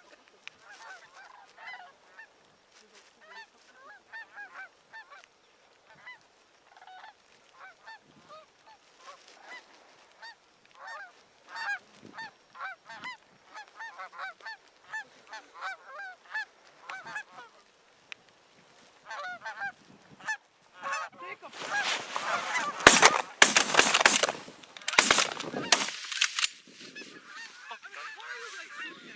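A flock of Canada geese honking, the calls growing denser and louder as the birds come in. About 22 s in, a quick run of loud sharp blasts over about four seconds, the loudest sound here.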